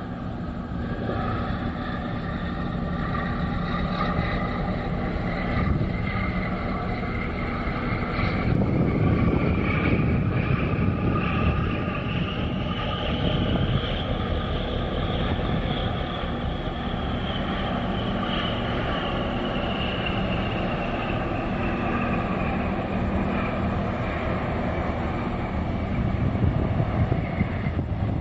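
Low steady engine rumble with a high whine that slowly rises to a peak about halfway through and then falls away again.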